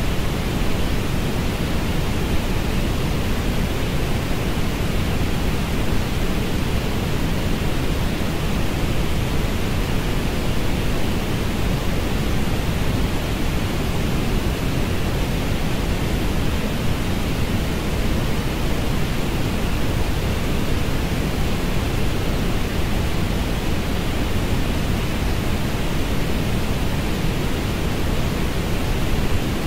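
Synthetic orange noise: a steady, unchanging hiss, heaviest in the low end and thinning toward the top.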